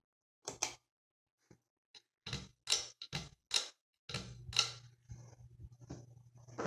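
Craftmade Manor ceiling fan: a quick run of sharp clicks from its pull-chain speed switch, then from about four seconds in a steady low electrical hum from the motor. The hum is the buzz the owner puts down to a bad capacitor.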